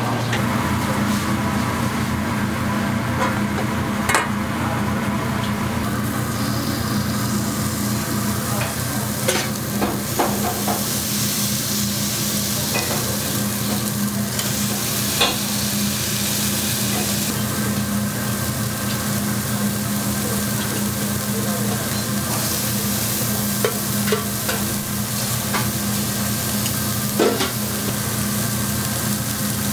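Beef patties, shrimp and cheese sizzling on a flat-top griddle, with the frying hiss growing stronger several seconds in, over a steady low hum. A few sharp clicks and taps are scattered through it.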